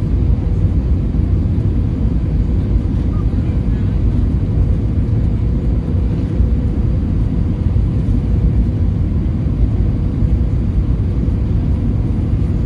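Cabin noise inside an Airbus A321 on final approach: a steady low rumble of the engines and rushing air, with a faint steady hum.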